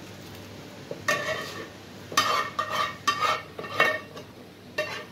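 Metal spoon scraping and knocking against the inside of a non-stick frying pan as thick meat gravy is scraped out. About a second in, a quick, uneven series of scrapes begins, each with a short metallic ring.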